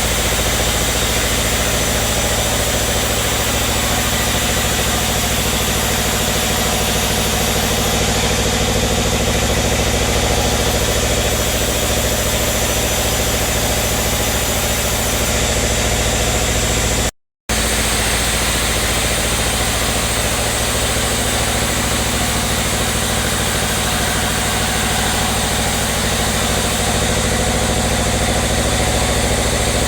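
Sawmill machinery running steadily, a constant-pitched engine drone with no rise or fall. The sound cuts out completely for a split second a little past halfway, then resumes unchanged.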